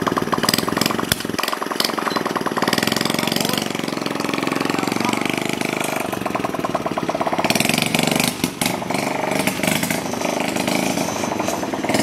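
Small single-cylinder engine of a custom fat-tyre Honda Chaly minibike running as it is ridden, its fast pulsing note rising and falling with the throttle.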